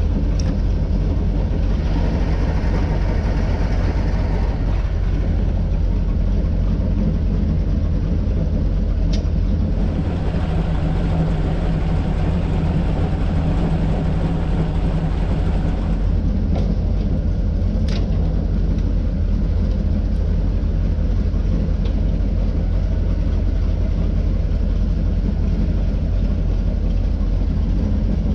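Airboat engine idling steadily at a constant level. Two short sharp clicks stand out, about nine seconds in and again about eighteen seconds in.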